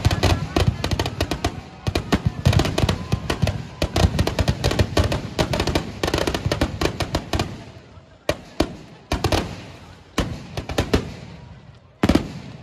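Firecrackers bursting inside a burning effigy: a rapid, dense string of cracks and bangs that thins out after about eight seconds into a few separate bangs, with a loud one near the end.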